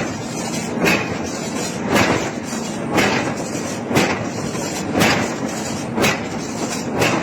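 Heavy hammer blows on hot iron being forged, about one strike a second, each briefly ringing, over a continuous din.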